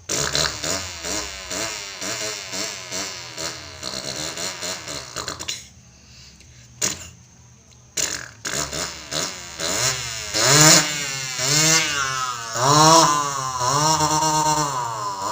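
A child imitating a motorbike engine with the mouth: a rapid pulsing stretch, a pause of about two seconds, then a series of rising and falling revs.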